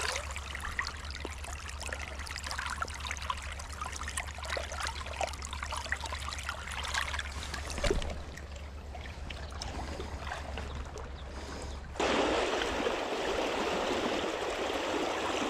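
River water flowing over shallows, with small crackling splashes. About twelve seconds in, it changes abruptly to a louder, steadier rush.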